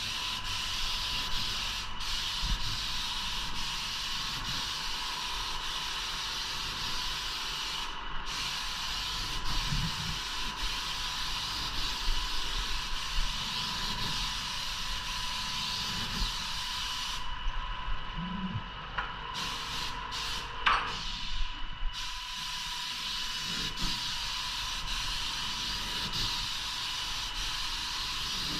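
Paint spray gun hissing steadily as woodwork is sprayed, with a faint steady whine under it. The spray stops briefly a few times, mostly on and off about two-thirds of the way through.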